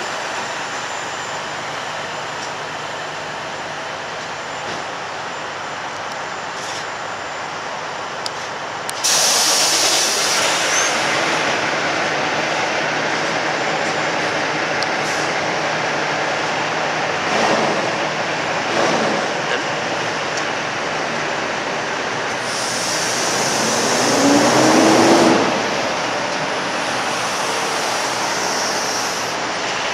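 Diesel semi-truck engines running as tractor-trailers manoeuvre, a steady mix of engine and traffic noise. About nine seconds in it turns suddenly louder with a high hiss, and a second long hiss with a short rising engine note comes in the last third.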